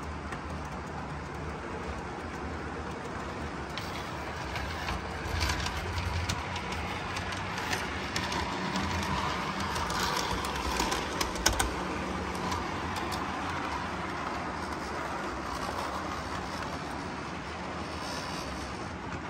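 O gauge model trains running on the layout: a steady mechanical hum of motors and wheels on track, with scattered clicks and rattles about a third of the way in through to past the middle.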